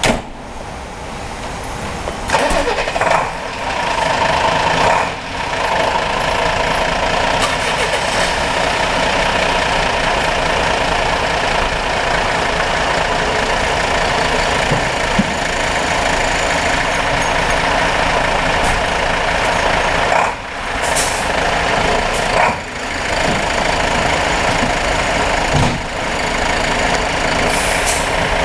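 Diesel engines of fire trucks starting and then running at idle, growing louder over the first few seconds and then holding steady, with a couple of short hisses in the last third.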